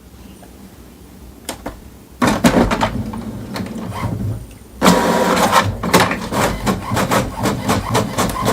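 HP Smart Tank inkjet printer mechanism running: a few light clicks, then from about two seconds in a whirring with clicks, which gets louder about five seconds in with a steady whine and rapid clicking.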